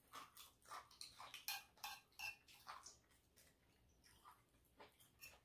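Close-up eating sounds: a quick run of soft clicks from chewing and mouth noises mixed with light taps of a fork on a plate, busiest over the first three seconds, then only a few scattered clicks.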